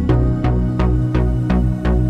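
Background music with a steady beat of about four hits a second over sustained bass notes and chords.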